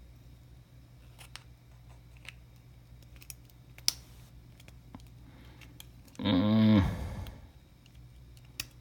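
Small metallic clicks and scrapes from an Abus Titalium TI12 euro cylinder as its plug is pushed out with the key to gut the lock, with one sharper click about four seconds in. About six seconds in there is a short voice sound.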